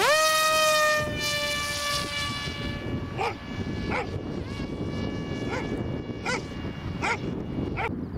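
Brushless electric motor and propeller of an Easystar pusher RC foam plane spooling up at the hand launch with a sharply rising whine, then a steady high whine that slowly fades as the plane climbs away. From about three seconds in, six short sharp sounds come at uneven intervals.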